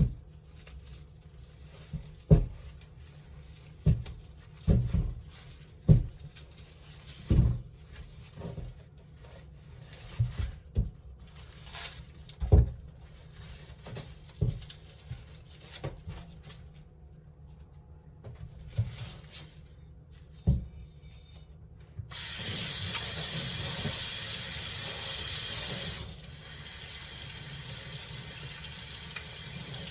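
Irregular knocks and clunks of things being handled and set down, then a tap starts running water into a sink about two-thirds of the way in, a heavier flow for a few seconds that then settles to a lighter, steady stream.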